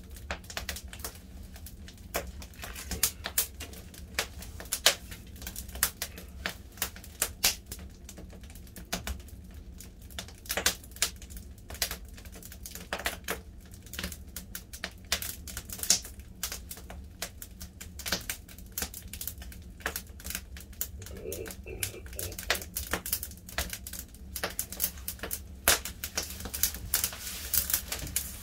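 Burning firewood crackling and popping with irregular snaps of varying loudness, over a steady low hum.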